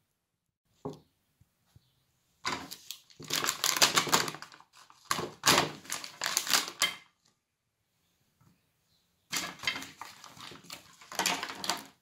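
Clear plastic cheese packaging crinkling and crackling in two stretches of rapid clicks as sliced cheese is pulled out of it by hand, with a single short knock about a second in.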